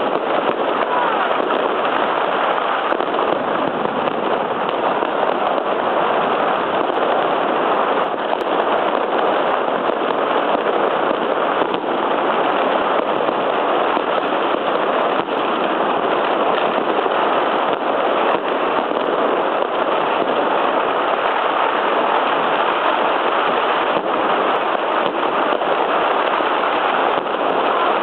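Dense, continuous barrage of firecrackers and fireworks going off all around, the many bangs blurring into one unbroken crackling din.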